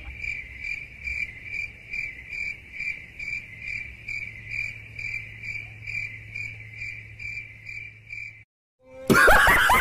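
Cricket chirping, laid in as a sound effect: an even, high chirp about two and a half times a second, with no street noise under it. It cuts off abruptly a little before the end, and loud voices and music come in after a brief dead silence.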